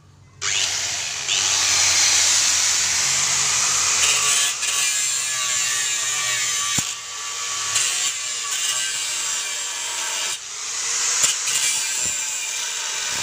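Bosch GWS 060 angle grinder cutting into a steel angle beam: a loud, steady, harsh grinding hiss that starts about half a second in, easing off briefly twice as the disc comes off the metal.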